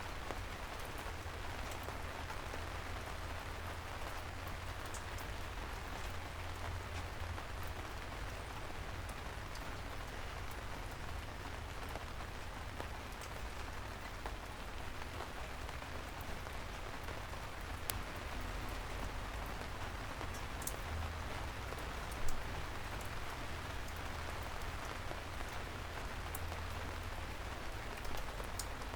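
Steady rain falling, with scattered drops ticking on hard surfaces and a low rumble underneath; one louder single drip or tap about three-quarters of the way through.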